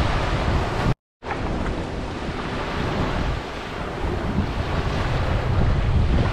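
Gentle surf washing onto a sandy beach, with wind buffeting the microphone as a heavy low rumble under the steady wash of the waves. The sound cuts out completely for a moment about a second in.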